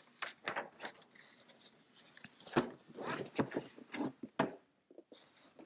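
A paper service manual being handled and moved across a wooden desk: irregular rustling of its pages and cover, with a few light knocks and crinkles.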